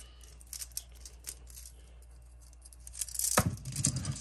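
A new Hipa360 saw chain being handled and fitted onto a chainsaw bar: light clicks and rattles of its metal links, with a louder scraping rustle about three seconds in followed by a few soft knocks.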